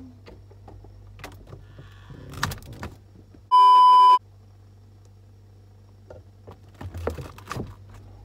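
A loud, steady, high-pitched test-tone beep lasting under a second, the tone played over TV colour bars, edited in midway. Around it, a low steady hum with scattered knocks and rustles of things being handled, loudest shortly before the beep and again near the end.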